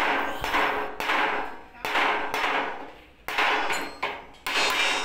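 Hammer blows on the dented steel side cover of a Cat 320 GC excavator, beating the dents out: about six ringing metallic strikes, unevenly spaced.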